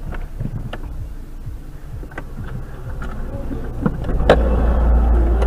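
Car sounds just after a collision ahead: a steady low engine-like hum with scattered knocks and clicks. About four seconds in comes a sharp clunk, and a louder low rumble follows.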